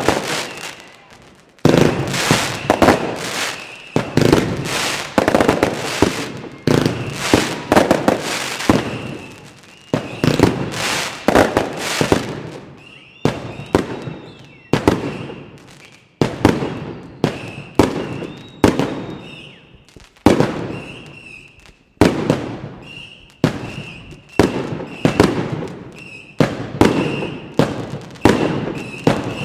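Aerial consumer fireworks going off in a rapid run of sharp bangs, some in quick clusters, as shells burst overhead.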